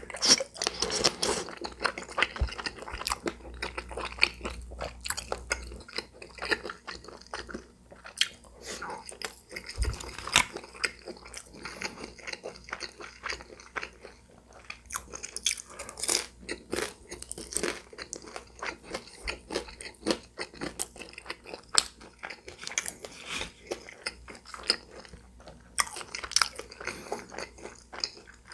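Close-miked chewing and crunching of food, with crisp bites of fried cheese dumplings: many short crackles and clicks.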